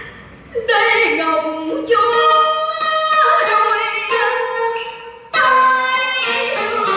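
A solo singer performing long held, wavering sung phrases over instrumental accompaniment. New phrases begin about half a second in, just before two seconds, and after five seconds.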